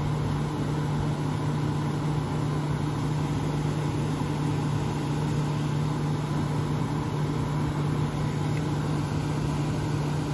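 1970 Signature 6,000 BTU window air conditioner running steadily: a constant low hum under the even rush of its fan.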